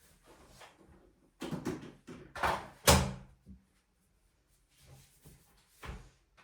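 Household tidying: things being handled and set down in a clatter of short knocks, with one sharp knock about three seconds in and a softer one near the end.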